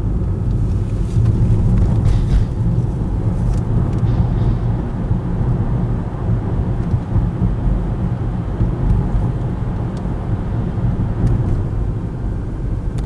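Car driving at steady speed: a continuous low engine and road rumble with no change in pace, as heard from a BMW 325xi wagon.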